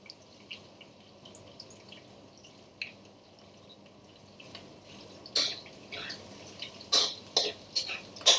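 Sliced onions and green peppers frying in hot oil in a pan: a steady sizzle with small crackling pops, and several louder, sharper noises in the second half.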